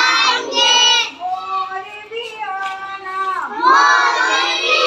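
A group of young children singing a Hindi action song together, loud for the first second and again from about three and a half seconds in, with a quieter stretch of held notes between.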